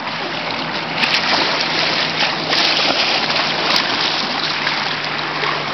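Steady rush of moving water, with a few brief splashes from a kayak and its paddle working on the water.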